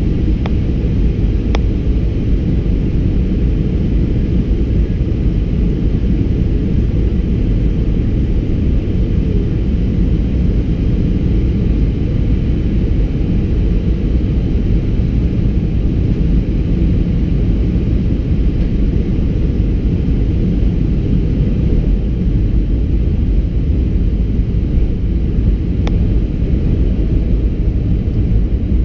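Steady low roar of an Airbus A320-200 in flight, heard inside the cabin: engine and airflow noise that holds constant, with a couple of faint ticks.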